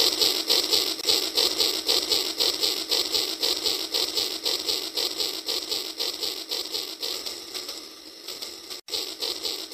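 Battery-powered toy steam train running along its plastic track: a quick, even mechanical clatter of its motor, gears and wheels. It fades as the train moves away near the end.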